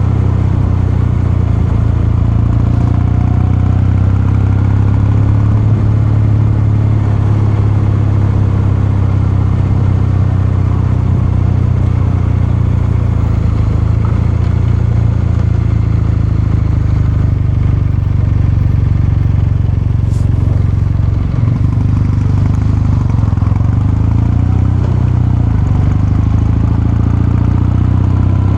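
Kawasaki Meguro K3's air-cooled 773 cc parallel-twin engine and exhaust running at a steady speed under way, with a brief dip in the note about three-quarters of the way through.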